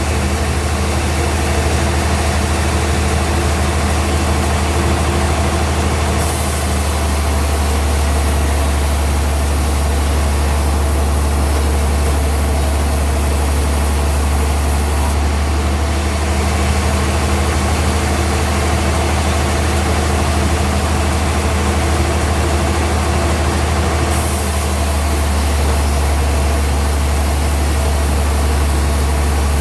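Sawmill machinery running with a steady low hum and drone; the high hiss above it shifts in level a few times.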